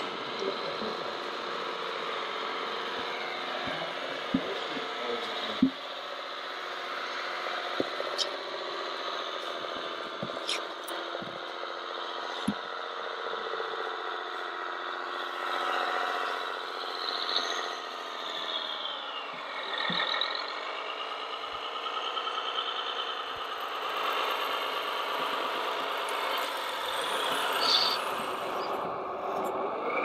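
Radio-controlled model trucks and construction machines running: a steady mix of motor and gear whine with scattered sharp clicks and knocks, and a whine that falls in pitch and rises again about twenty seconds in.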